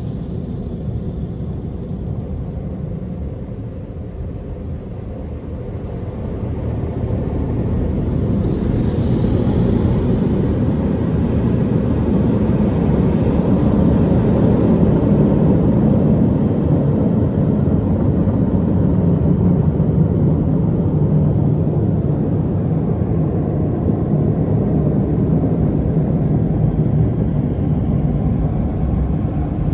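Mark VII ChoiceWash XT car wash dryer blowers running, heard from inside the car: a steady, loud, deep rush of air that swells over a few seconds and then holds.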